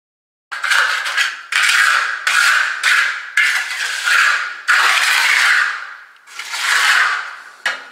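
Steel hand trowel scraping and smoothing wet concrete, in about seven strokes of half a second to a second and a half each, starting about half a second in.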